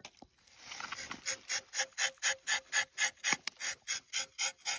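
Rubber-tapping knife shaving a thin strip of bark along the tapping cut of a rubber tree: a soft scrape at first, then from about a second in an even run of rasping ticks, about five a second.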